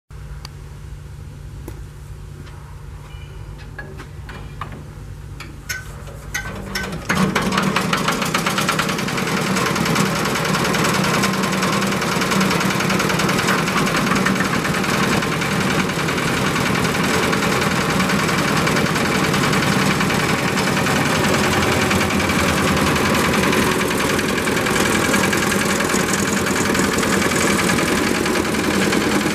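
Lister single-cylinder diesel engines on Benford cement mixers, cold-started. A quieter steady hum with a few clicks comes first. About seven seconds in, an engine fires and runs on loudly and steadily with a rapid, even beat.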